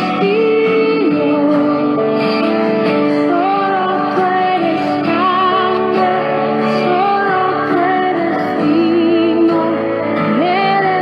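Slow worship song: a woman singing long held notes with vibrato over an instrumental backing.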